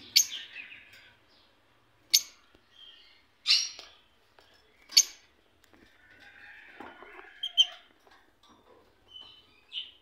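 Lovebirds calling: about six sharp, loud chirps spaced a second or two apart, with softer twittering between them.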